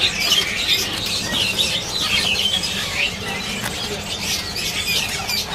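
Many caged songbirds chirping and calling at once: a dense, continuous mix of short high chirps and trills, with no single bird standing out.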